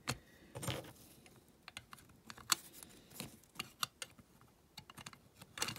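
Light, irregular clicks and taps of small metal parts being handled while a rivet is fitted to hold the bumper on a die-cast toy van.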